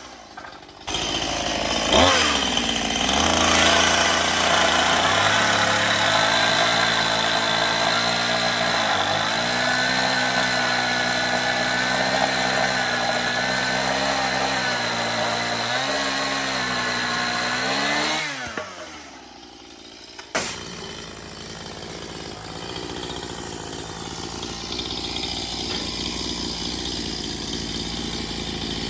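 Electric power saw running, its motor note dipping several times as it cuts through the boards, then spinning down about 18 seconds in. A click follows, then a quieter steady noise.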